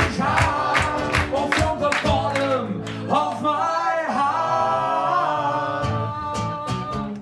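A man singing to a strummed acoustic guitar. Steady strumming for about the first three seconds, then a long held sung note with the guitar ringing under it.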